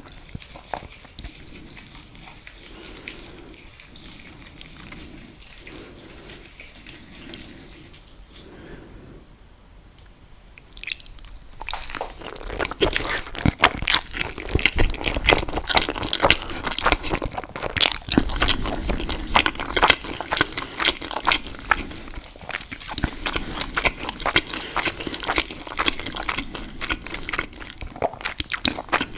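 Close-miked eating sounds: soft chewing for about the first ten seconds, then from about twelve seconds in, dense wet chewing and smacking with many sharp mouth clicks, from eating saucy pasta.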